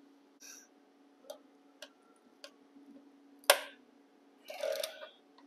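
Crimping pliers and a blue insulated ring terminal being handled and crimped onto a red wire: a few light clicks, one sharp click a little past halfway, and a brief noisy sound near the end.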